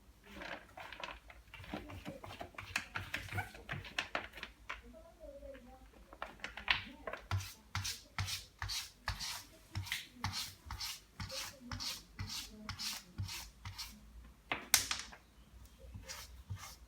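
Cat scratching and digging in cat litter with its paws, rasping strokes that settle into a quick, even series of about two or three a second partway through, with one louder scrape near the end.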